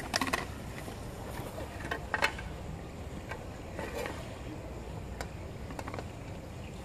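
Outdoor background noise: a steady low rumble with a few scattered soft clicks and knocks.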